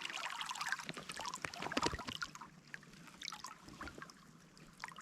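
Stream water sloshing and splashing around someone wading in the current, with scattered drips and trickles. The splashing is densest at first and thins out to sparse drips about two seconds in.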